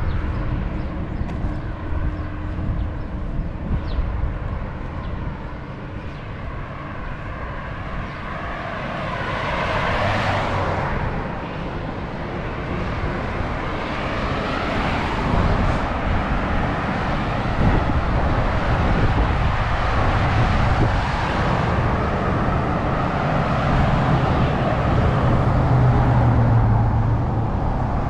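Street traffic: vehicles passing by, one swelling past about ten seconds in, with a heavier engine rumble near the end.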